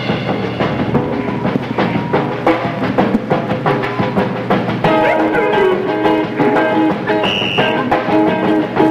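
Live rock band playing an instrumental passage: a drum kit keeps a busy beat under guitar and bass lines, with quick runs of notes from about five seconds in.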